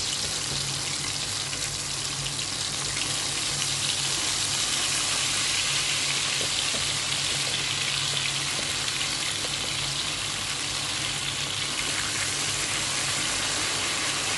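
Potato wedges deep-frying in hot oil, a steady dense sizzle with fine crackles throughout.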